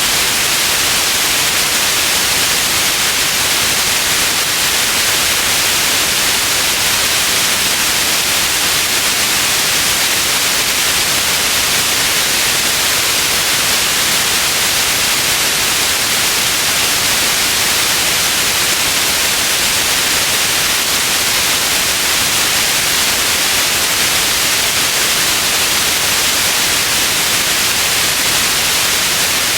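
White noise: a steady, even hiss, brightest in the high range, that does not change.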